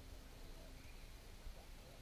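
Near silence: faint outdoor background with a low rumble.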